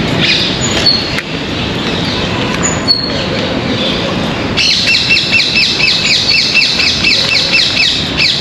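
Birds chirping. From about halfway, one bird starts a rapid, evenly repeated run of high chirps, about four or five a second.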